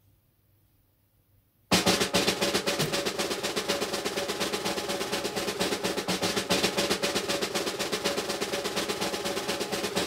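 Near silence, then about two seconds in a fast snare drum roll starts suddenly and runs on, loud, as edited-in music.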